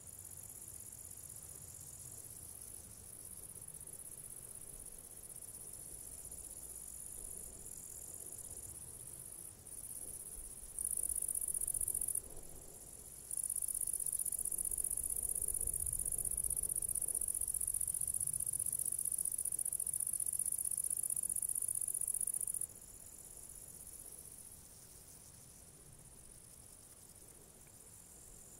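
Crickets singing in meadow grass: a very high, continuous buzz that starts and stops abruptly. Loudest in a short spell about eleven seconds in, then a long stretch from about thirteen seconds in that cuts off suddenly some nine seconds later. A second, slightly lower buzz comes and goes beneath it.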